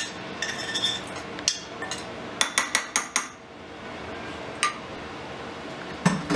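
Metal spoon scraping and tapping against a stainless steel frying pan to knock softened onion out of it, with a run of quick clinks about two and a half to three seconds in. A single click follows, then a louder knock near the end.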